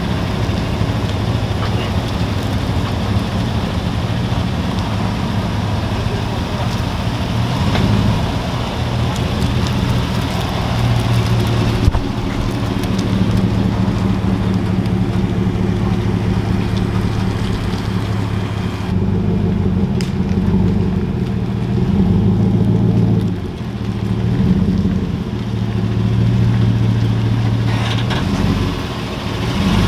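Chevrolet Silverado pickup's engine running as the truck is driven slowly, its note shifting up and down several times.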